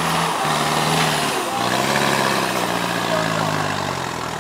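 4x4 off-road vehicle's engine running, its pitch stepping up and down as the revs change.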